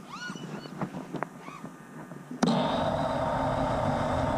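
Faint bird chirps, then about two and a half seconds in the four brushless motors of a 5-inch FPV quadcopter (2306 2555KV motors with three-blade props) start suddenly and run at a steady idle as the quad is armed in airmode.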